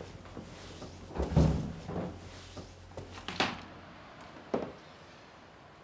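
A door being opened: a few scattered thumps and clicks, the loudest about a second and a half in, over a faint low hum that dies away partway through.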